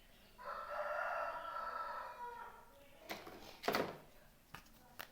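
A pitched, rooster-like crowing call about two seconds long, followed by a few sharp clicks and knocks.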